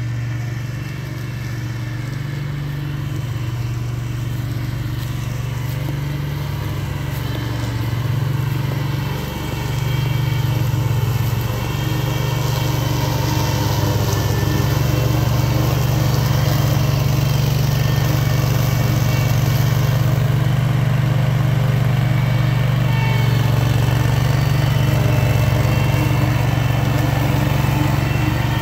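Engine of a SPIDER ILD02 remote-controlled slope mower running steadily while it cuts tall grass. It grows louder about ten seconds in as the mower comes close.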